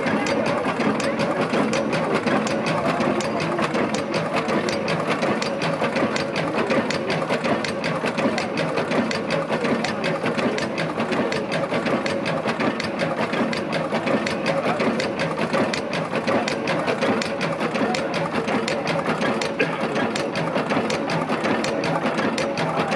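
Vintage vertical multi-cylinder stationary engine running steadily, its valve gear and moving parts making a fast, even clatter.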